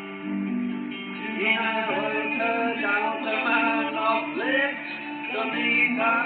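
A band playing live music, with a man singing over guitar.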